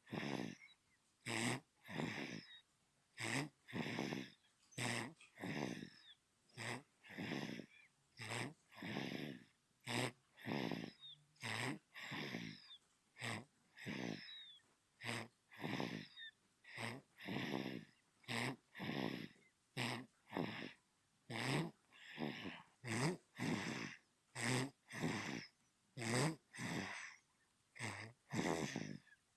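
Newborn baby snoring in its sleep: quick, regular snoring breaths, a little over one a second.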